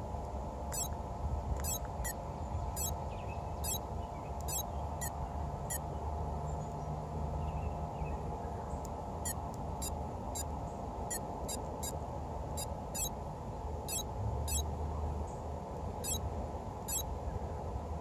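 A constant droning hum made of several steady tones over a low rumble, the ever-present noise that the uploader takes for a nearby power plant. Short, high chirps or beeps come over it at an irregular pace of one or two a second.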